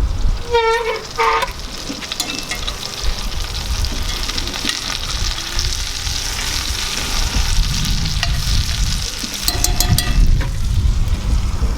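Floured chicken breasts frying in butter and olive oil in a cast iron skillet: a steady sizzle.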